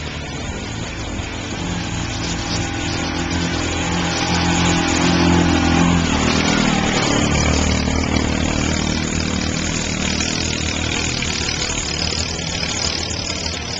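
Yamaha Rhino 700 UTV's single-cylinder engine driving past on a trail. It grows louder as it approaches, drops in pitch as it passes about six seconds in, then fades as it pulls away.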